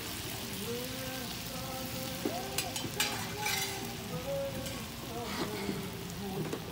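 Chicken cutlets in butter, white wine and freshly added chicken stock sizzling and bubbling steadily in a hot sauté pan.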